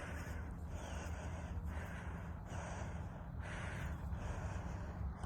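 A person breathing heavily in and out, about one breath a second, out of breath from galloping, over a steady low rumble.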